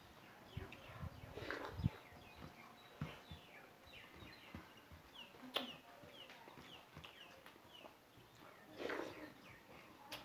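Faint birds chirping, including a quick run of short falling notes about halfway through, with scattered soft knocks and clicks underneath.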